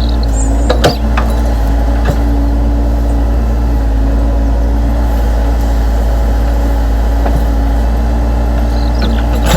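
Radio-controlled model excavator's motor and hydraulic pump running steadily, with a few sharp clicks from the machine about one and two seconds in.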